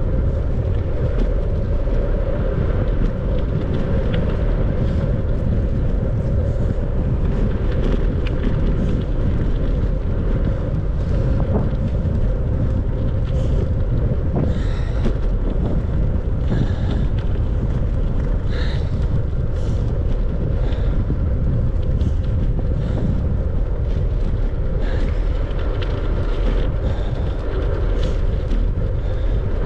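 Steady wind noise on the microphone of a camera riding along on a moving bicycle, a constant low rush with faint ticks and chirps above it.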